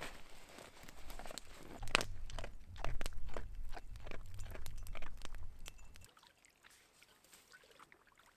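Dog eating dry kibble from a plastic bowl: a quick run of crisp crunches as it chews, stopping abruptly about six seconds in.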